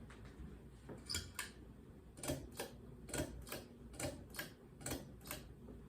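Light ticking clicks, about two a second and often in pairs, starting about a second in.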